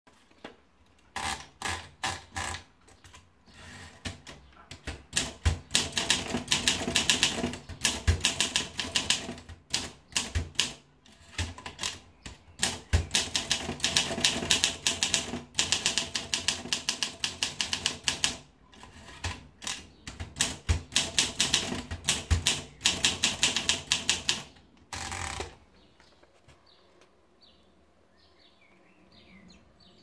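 Olympia SM2 manual portable typewriter being typed on: runs of rapid key strikes and typebar clacks, broken by short pauses. The typing stops about 25 seconds in.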